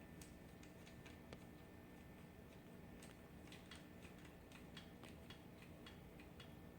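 Faint, irregular clicks of a cat crunching dry kibble, coming a few a second and thickest in the middle.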